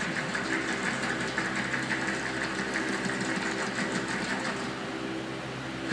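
Steady mechanical hum with a buzzing edge, running evenly throughout.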